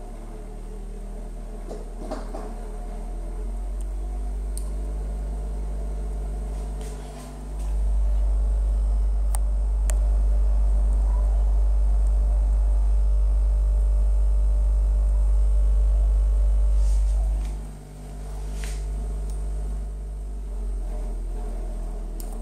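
Skar Audio VVX12 12-inch subwoofer in a 6th order bandpass enclosure playing a steady, very low sine test tone from a tone generator. The tone gets much louder about seven seconds in and drops back about eighteen seconds in. The tone is being used to check the box's port tuning after padding was added to its chambers.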